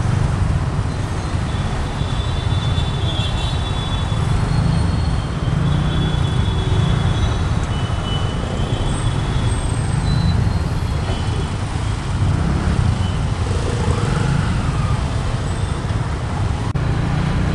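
Riding through city traffic on a motorcycle or scooter: a steady low rumble of wind and engine at the microphone, with surrounding road traffic and a few thin, high tones now and then.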